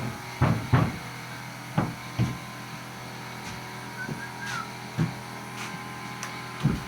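Scattered knocks and thuds of carpentry work on wooden floor framing, about six at irregular intervals, over a steady mechanical hum.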